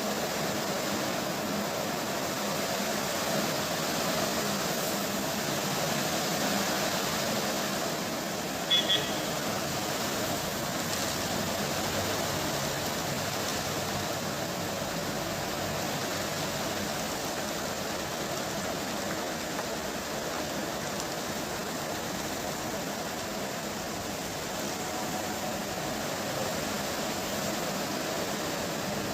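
Steady rain falling, an even hiss throughout. About nine seconds in, two short high-pitched tones cut through it.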